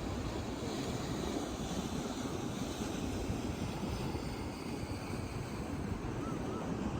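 Steady beach ambience: wind rumbling on the microphone over the wash of surf, even in level throughout.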